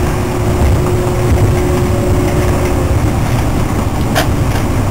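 Washington Metro train running on the track, heard from inside the railcar: a steady loud rumble of wheels and motors, with a faint steady hum that fades out about three seconds in and a single short click near the end.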